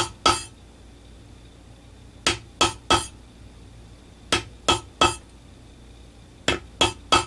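Yellow plastic-headed mallet striking a steel P703 pear shader stamp into leather, stamping the toe tips of a paw print: sharp taps in quick groups, two at first, then three groups of three about a third of a second apart, with short pauses between groups.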